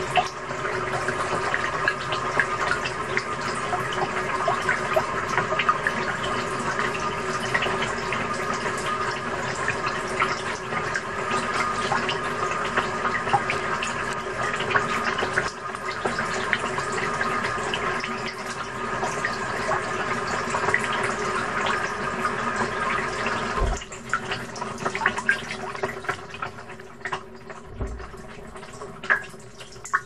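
Water sloshing and splashing inside a front-loading washing machine drum as it turns, heard from inside the drum, with a steady hum running under it. About 24 seconds in the sound drops away sharply, leaving quieter scattered clicks and a low thump.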